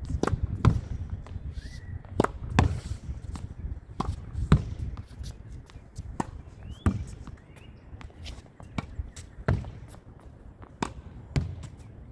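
Tennis rally against a practice wall: sharp racket strikes, the ball smacking the wall and bouncing on the court, repeating every second or two in an uneven rhythm.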